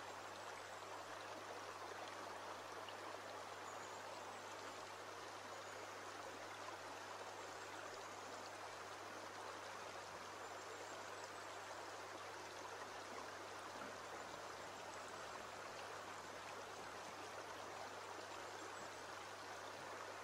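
Shallow stream running over a bed of pebbles and stones: a soft, steady flowing-water sound.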